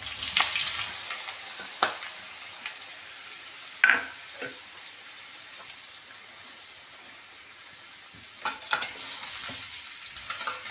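Boiled jackfruit pieces hitting hot oil in a kadhai. The sizzle is loudest at first, then settles to a steady hiss. A few sharp clinks of metal on the pan sound along the way, and near the end the hiss rises again as the pieces are stirred with a metal spatula.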